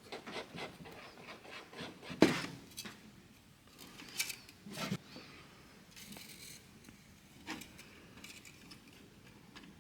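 Faint scraping and rubbing with scattered small clicks as two-part epoxy is mixed into a paste by hand, with one louder knock about two seconds in.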